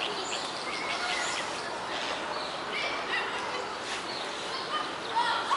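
Small birds chirping and singing in many short, high calls over a steady outdoor hiss.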